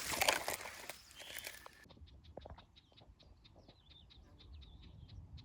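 Rustling and crackling of dense vegetation being pushed through, then, after a cut about two seconds in, a small songbird calling in a quick run of short, high chirps.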